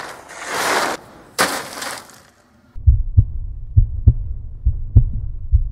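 Two noisy whooshes, then, a little before halfway, a heartbeat sound effect starts: deep paired thumps about once a second.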